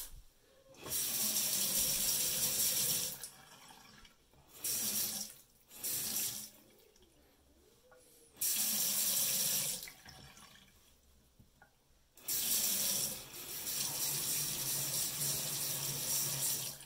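Water from a single-handle bathroom faucet running into the sink in several separate spells, each starting and stopping sharply as the new cartridge's bare stem is turned on and off by hand. The longest spell comes near the end. The faucet is being run to check the freshly replaced cartridge for leaks.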